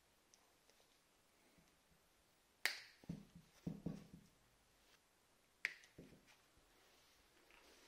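Diagonal cutters snipping the wire leads of an electric motor's windings: two sharp snaps about three seconds apart, each followed by a few soft knocks of the tool and motor being handled.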